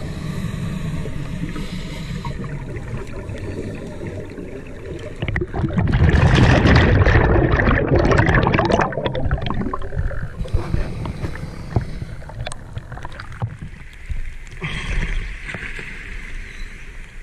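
Underwater scuba breathing: a loud crackling rush of exhaled bubbles from a diver's regulator from about six to nine seconds in, with a shorter, weaker rush near the end, over a steady low underwater rumble.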